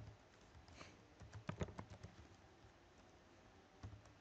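Faint computer keyboard typing: a quick run of keystrokes a little over a second in, and a couple more keystrokes near the end.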